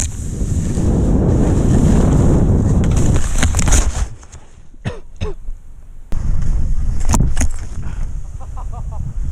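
Wind buffeting an action camera's microphone as a skier descends through powder, with knocks from skis and snow. About four seconds in, the rushing drops away for about two seconds as powder covers the camera, with a few sharp knocks, and then it returns.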